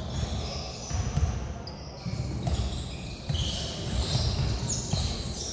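Basketball bouncing on a hardwood gym floor, irregular thumps as players dribble and run, with short high squeaks from sneakers on the boards, all echoing in a large hall.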